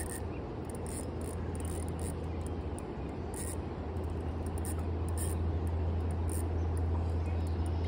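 Steady rush of river rapids, with faint, irregular high ticks or chirps over it.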